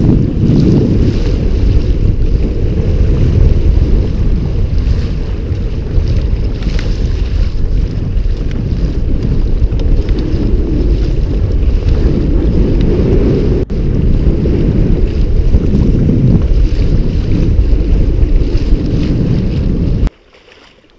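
Strong wind rumbling on the microphone, with waves washing around a pedal-driven kayak under way. The noise cuts off suddenly near the end.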